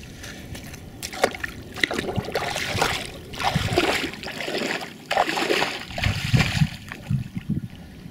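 Feet wading through shallow, muddy floodwater: irregular splashes and sloshes, with deeper, heavier splashes about six seconds in as the wader drops toward his knees.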